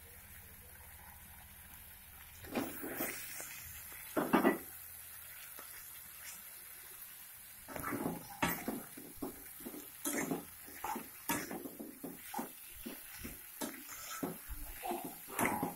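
A metal spatula scraping and knocking against a wok while stir-frying rice. There are a couple of clunks early on, then from about eight seconds in a quick run of short scrapes and taps as the rice is turned.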